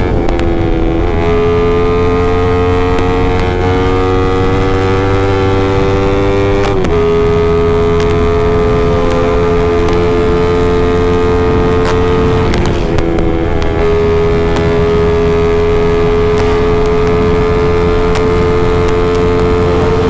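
Yamaha MX King single-cylinder four-stroke engine, bored up to about 170 cc, running at high revs under full throttle at top speed. Its loud, steady note briefly drops in pitch about a second, seven and thirteen seconds in as it shifts up.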